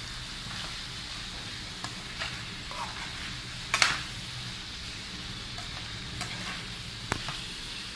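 Liver and skin pieces sizzling as they fry in a pan while a utensil stirs them, with a few sharp knocks against the pan, the loudest about four seconds in.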